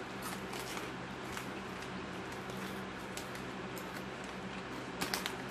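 Xtra Flamin' Hot Cheetos bags being handled and reached into: scattered faint crinkles and crackles, with a short cluster of sharper crackles about five seconds in, over a steady low hum.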